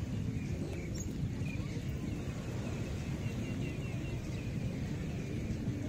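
Ocean surf washing on a beach with wind on the microphone: a steady, low rushing noise.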